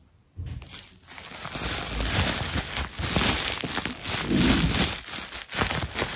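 Bubble wrap being squeezed and rubbed between fingers, a dense crinkling and crackling that starts about half a second in. The bubbles don't pop.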